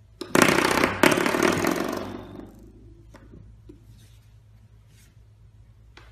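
A spring door stop flicked by a puppy's paw, twanging with a buzzy vibration twice, about a third of a second in and again at one second, then dying away over about two seconds. A few faint taps follow.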